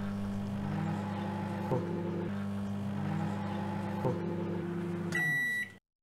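A 600-watt microwave oven running with a steady hum, which stops about five seconds in and is followed by a single high beep of about half a second. The beep marks the end of the cooking cycle.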